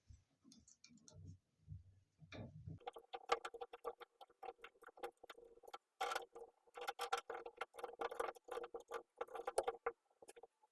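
Small parts of a faucet handle being handled and its set screw worked: soft knocks at first, then from about three seconds in a quick, irregular run of light clicks and ticks with a faint ringing note under them.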